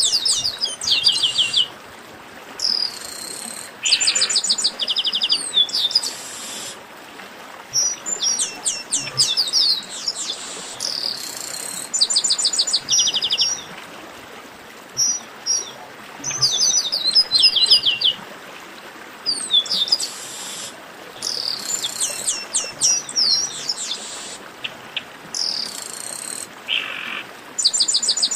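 Chestnut-capped blackbirds singing: runs of rapid, sharp notes sliding downward, repeated every second or two, with a few harsh rasping notes among them, over a steady hiss.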